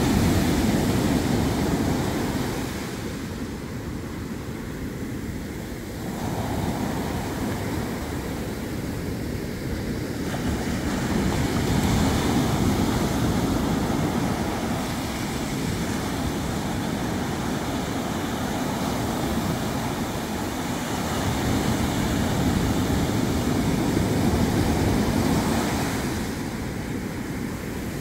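Ocean surf: small waves breaking close by and their foam washing up and back over the sand. The steady rush swells and eases every several seconds as each wave comes in.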